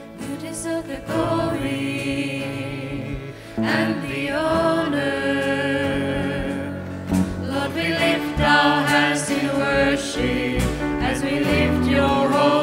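Live worship band playing and singing a praise song, with acoustic guitar and keyboard under the voices. The music swells about three and a half seconds in.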